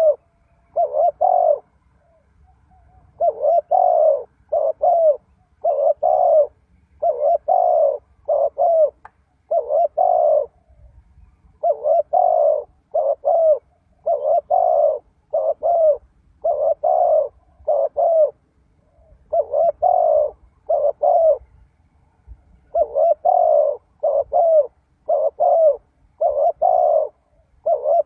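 Spotted dove cooing: repeated low phrases of two or three notes each, about one phrase every two seconds, with a few longer pauses between them.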